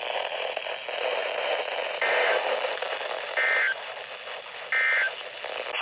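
Weather radio receiver hissing with static, broken by three short bursts of EAS/SAME digital data tone about a second apart. The short length of the bursts fits the end-of-message (NNNN) code that closes an alert.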